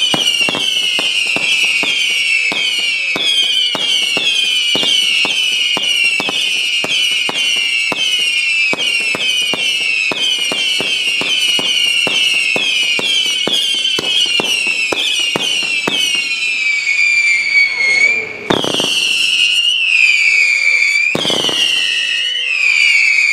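Batteria fireworks going off: a dense stream of shrill whistles, each falling in pitch and overlapping the next, punctuated by sharp cracks a few times a second. Two heavier bangs come near the end, with the whistles carrying on between them.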